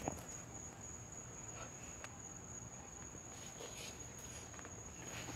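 Faint, steady, high-pitched trill of crickets, with a few soft clicks and rustles.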